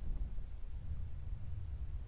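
Low, uneven rumble of a hand-held phone being handled, with fingers rubbing near its microphone.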